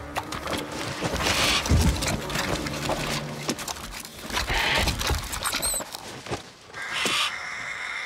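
Harris hawks scrabbling on a dry animal skull: many clicks and scrapes of talons on bone, with three short rushes of wing flapping a few seconds apart.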